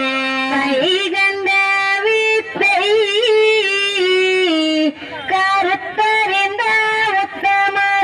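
A single voice singing a slow melody in long held notes with a slight waver, stepping up and down in pitch, with a brief pause about five seconds in.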